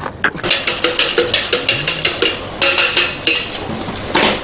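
Kitchen clatter: metal pots, bowls and utensils knocking and clinking in quick, irregular strokes, some ringing briefly, with a louder knock near the end.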